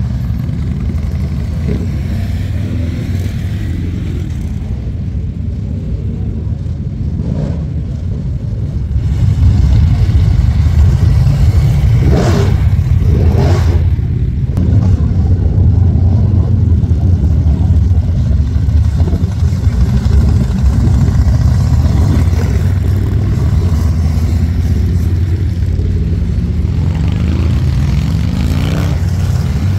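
A procession of heavy cruiser and touring motorcycles riding past, their engines rumbling steadily. The engine sound gets louder about nine seconds in. Engines rev and rise in pitch a few seconds later and again near the end as bikes pull through.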